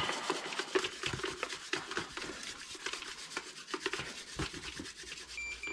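Dry grain crunching and crackling as a sample is ground in a handheld grain moisture meter, a test of grain that is still a little soft. A short electronic beep from the meter comes near the end.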